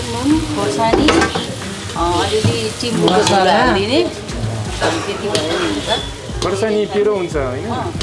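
Spiced potatoes frying in a pan: a steady sizzle with stirring scrapes and sharp clicks, under a woman talking.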